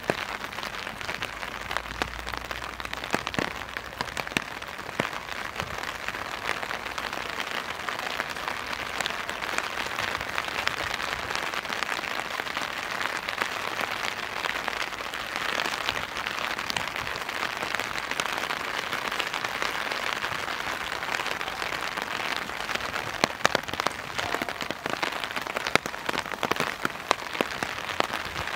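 Steady rain falling, with many individual drops ticking sharply on nearby surfaces.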